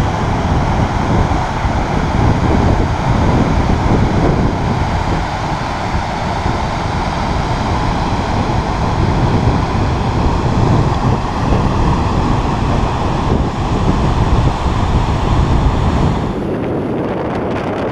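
Wind buffeting the microphone over the steady rush of a snowmelt mountain stream cascading over rocks. About sixteen seconds in, the rush of water falls away and mostly wind remains.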